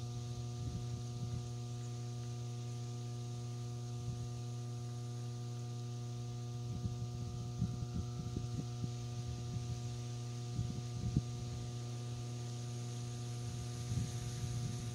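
Steady electrical mains hum with a series of even overtones, unchanging throughout, with a few irregular low rumbles in the middle and near the end.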